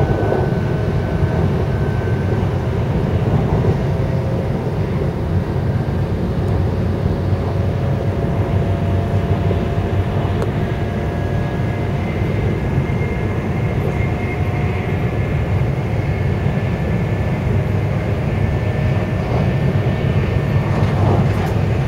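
Shinkansen bullet train running at speed, heard from inside the passenger cabin: a steady low rumble with faint thin whining tones above it.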